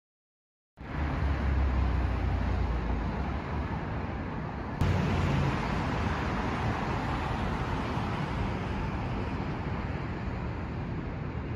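Downtown street traffic noise: a steady low rumble of passing vehicles under a wash of city noise, starting suddenly about a second in after silence. The sound jumps abruptly about five seconds in.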